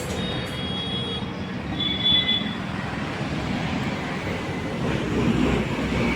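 A vehicle engine running with road noise, steady and fairly loud, starting abruptly. A thin high whistling tone sounds twice in the first two and a half seconds.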